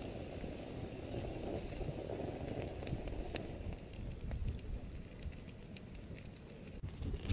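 Slow-moving lava flow crackling faintly as it creeps over the ground and burns into plants and a log: scattered sharp clicks and ticks over a low steady hiss.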